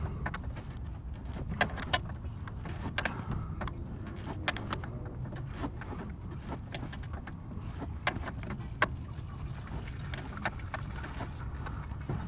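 Scattered sharp clicks and rattles of a truck's plastic radiator drain valve being worked by hand as coolant starts running out of the drain, over a steady low rumble.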